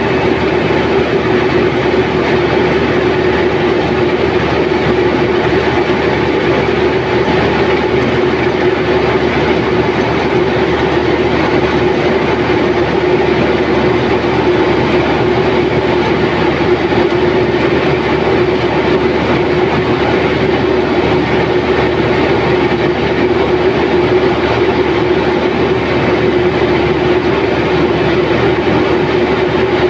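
Zoomlion tracked combine harvester running at work while cutting paddy, heard close up from the operator's seat: a loud, even mechanical drone of engine and machinery that holds steady throughout.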